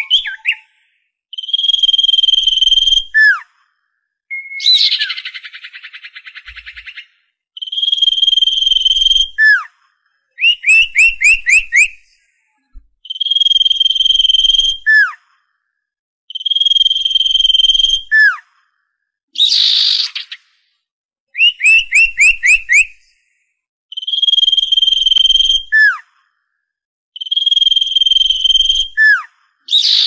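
Common iora song. A long, steady, high whistle is held for over a second and ends in a sharp downward slur, repeated every few seconds. Between the whistles come quick runs of rising notes, a harsh buzzing rattle and short rasping chatters.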